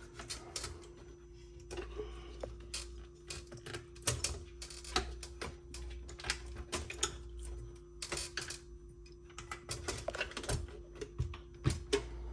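Irregular small clicks and taps of a screwdriver and metal and plastic parts being handled while the Macintosh Plus's CRT mounting screws are taken out, over a faint steady hum.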